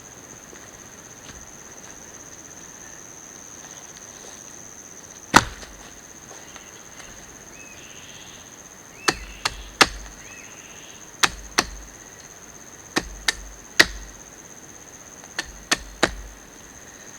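Wood being chopped with a blade: about a dozen sharp strikes, one alone about five seconds in, then quick runs of two or three through the second half. A steady high insect drone runs underneath.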